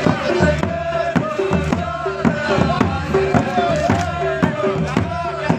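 Pashto folk music for the Attan dance: a drum beating a steady rhythm, about two to three strokes a second, under a male voice singing a tapay melody.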